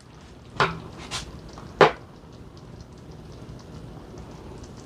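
A serving spoon knocking and scraping against cookware as gnocchi in tomato sauce is scooped out, three sharp knocks in the first two seconds, over a low steady hum.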